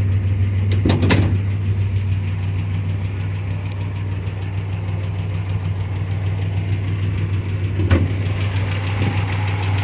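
MGC's 2.9-litre straight-six engine idling steadily, with two short clunks, one about a second in and one near the end.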